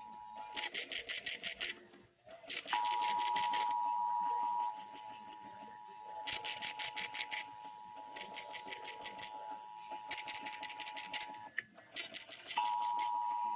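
Emergency Alert System two-tone attention signal, a steady paired tone that breaks off twice briefly. Over it come repeated bursts, each about a second long, of rapid, even clicking.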